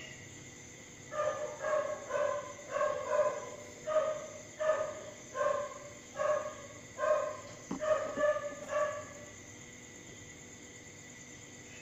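An animal calling over and over in a quick series of short pitched calls, about two a second, stopping a few seconds before the end. There is a single sharp click about eight seconds in.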